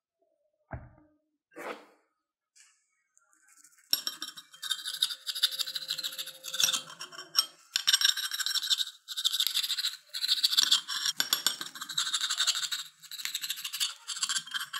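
A plate is set down with one dull knock about a second in. From about four seconds in, a knife crunches through the crisp fried crust of a potato and egg omelette in several crackly, scraping cutting strokes, each a second or two long.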